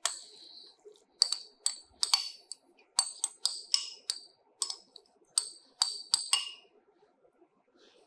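Metal spoon clinking and scraping against a small glass bowl as ginger paste is scooped out, more than a dozen sharp ringing clinks at an uneven pace that stop a little before the end.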